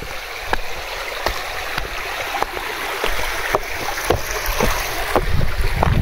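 Steady rush of flowing water from a mountain stream, with soft regular knocks about twice a second, likely footsteps on the trail.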